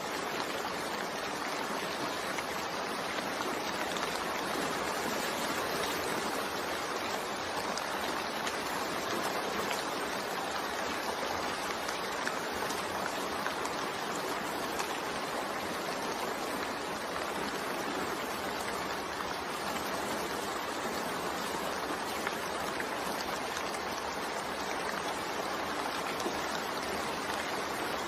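Steady rainfall, an even rushing wash of water with no single drops, thunder or changes standing out.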